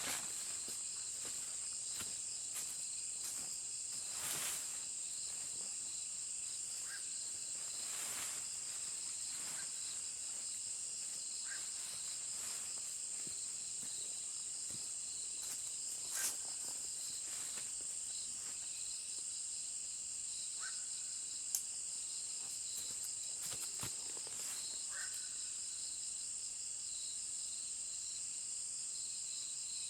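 Steady, high-pitched chorus of insects, with a few scattered soft knocks or rustles.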